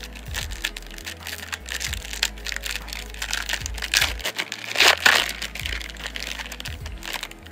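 Foil wrapper of a trading-card pack crinkling and tearing as it is pulled open by hand, with the loudest crackle about five seconds in. Background music with a low bass line plays underneath.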